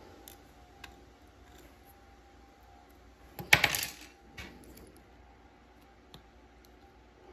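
A brief metallic clatter of small watchmaking tools on the bench, about three and a half seconds in, followed by a smaller clink. A few faint taps come before and after it.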